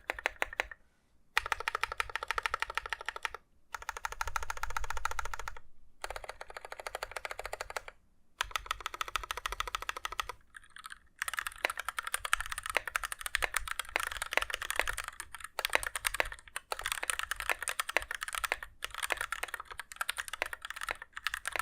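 Mechanical keyboard with Gateron Red linear switches on a DZ60 PCB in a KBDFans 5° case, typed on in fast runs of keystrokes with a few brief pauses. The typing grows denser and brighter after about eleven seconds.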